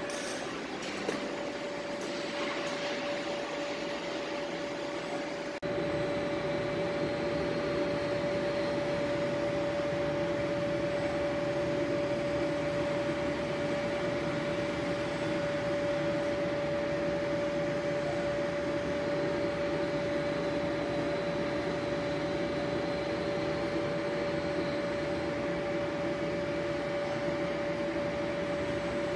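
Yenar YF 60210 roll fluting machine running as it cuts flutes into a steel milling roll: a steady machine hum with one constant high tone. It grows louder and fuller about six seconds in.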